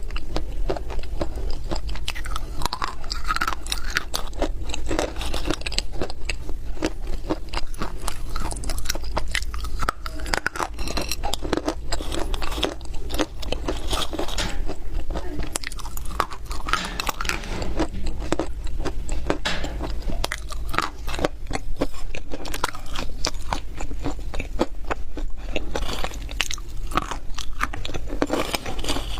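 Close-miked biting and chewing of dry, crunchy loess clay: a dense, continuous stream of crunches and crackles over a steady low hum.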